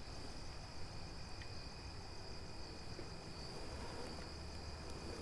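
Crickets chirring steadily in a continuous high-pitched trill, faint, over a low background rumble.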